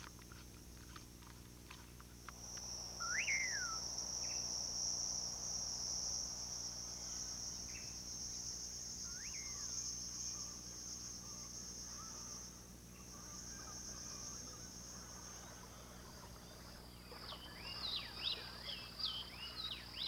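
Night forest ambience: insects trilling in one steady high-pitched band, with a few short calls that rise and fall. Near the end many short chirping bird calls start up, as at dawn.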